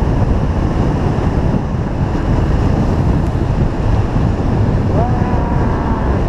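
Steady wind rush buffeting the microphone of a Honda CB300 motorcycle's camera at riding speed, with the bike's single-cylinder engine and tyre noise running underneath.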